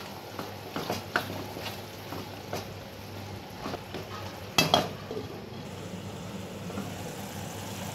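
A spatula stirring thick rajma (kidney bean) gravy in a kadai as it sizzles, with scattered light clicks of the spatula against the pan. One louder clatter comes a little past halfway.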